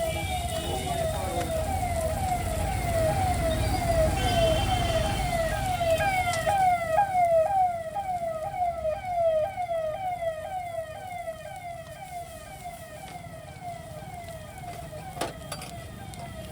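An electronic siren yelping, a quick falling tone repeated about twice a second, over the low rumble of road traffic that eases off after about eight seconds.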